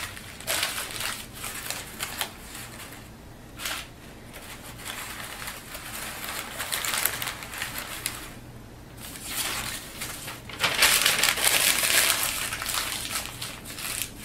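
Newspaper being crumpled into balls by hand and packed around a bottle, heard as repeated bursts of crinkling. The longest and loudest burst comes near the end.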